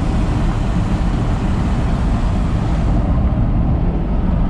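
Small-block V8 of a 1966 Chevrolet C10 pickup running through a straight-piped single exhaust while under way on a gravel road, heard inside the cab as a steady low rumble mixed with tyre and road noise.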